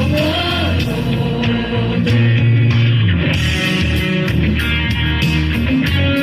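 Pop-rock instrumental passage led by guitar over bass and a steady drum beat, with no voice.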